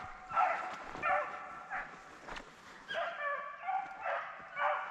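Pack of beagles baying while running a rabbit, several dogs giving tongue in repeated, overlapping bursts of voice.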